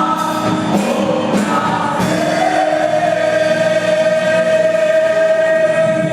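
Choir singing a Christian song, settling about two seconds in onto one long held note.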